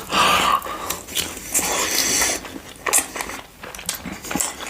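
Close-miked eating for ASMR: repeated biting and crunchy chewing, a dense run of crackling bites and mouth clicks.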